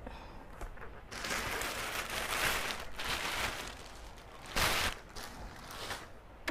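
Cardboard box and packing material rustling and scraping as the sewing machine is handled out of its box, with a brief louder rustle about four and a half seconds in.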